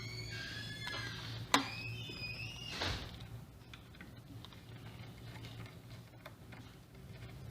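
High squeaking from screws being worked loose from a dental chair's bellows, with a sharp click about a second and a half in and another near three seconds, then light clicks and handling sounds. A steady low hum runs underneath.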